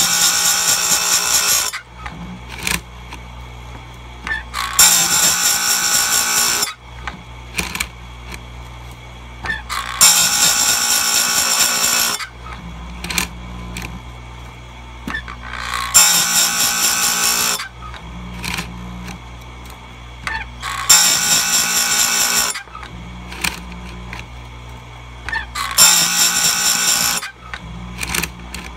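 Power Fist bench-mounted chainsaw chain grinder, its wheel grinding cutter teeth in six brief passes about five seconds apart, taking only a small amount off each cutter. The motor hums steadily between passes, with small clicks in the gaps.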